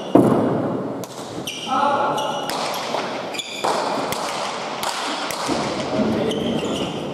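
Basque pelota rally in an indoor court: the hard pelota ball cracks off the players and the walls about once a second, the loudest just after the start, each crack echoing through the hall. Shoes squeak on the court floor between shots, and voices can be heard.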